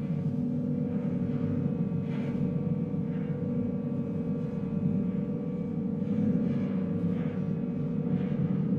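Dark ambient drone: a low, steady hum with a few held tones over a rumbling undertone and faint hissing swells.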